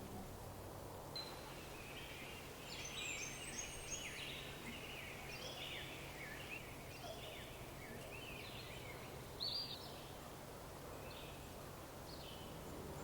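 Songbirds chirping and calling in a forest, many short sloping notes, some overlapping, over a faint steady low hum. The calls thin out near the end.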